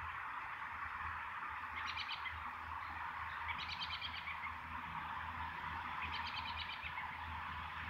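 A small bird sings three short, rapid trills a couple of seconds apart, over a steady hiss.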